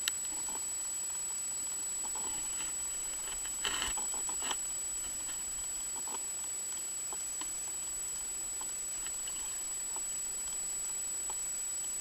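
Underwater recording through an action camera's waterproof housing: a steady hiss with a thin high whine, scattered faint clicks, and a brief cluster of louder clicks and knocks about four seconds in.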